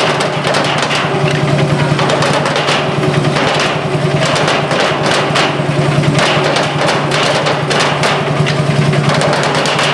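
Wooden sticks drumming a rhythm on oil barrels, struck many times a second, over the steady, rapidly pulsing run of a vintage stationary engine close by.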